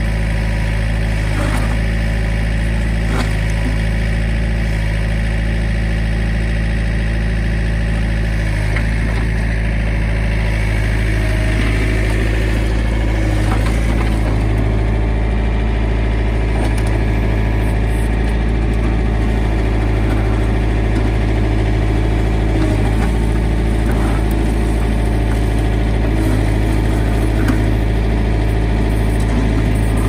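A backhoe's diesel engine runs steadily and loudly at an even speed, with a few faint knocks here and there.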